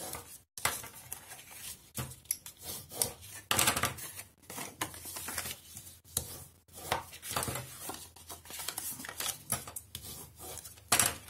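Bone folder rubbed and scraped along cardstock to crease the folds of a paper box, in irregular strokes of varying length, with paper rustling as the card is pressed flat.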